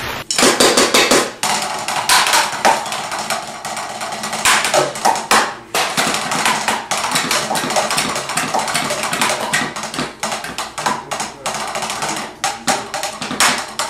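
Wooden drumsticks striking stand-mounted drum practice pads in rapid, irregular strokes and fills, a dense run of sharp taps.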